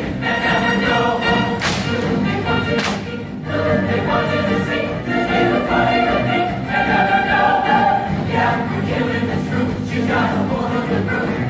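A show choir singing in full chorus over instrumental accompaniment, with two sharp percussion hits a little over a second apart near the start.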